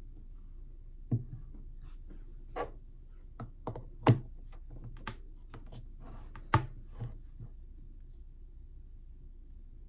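Hard plastic toy pot and clear plastic dome being handled: a string of light clicks and knocks, two of them louder, about four and six and a half seconds in.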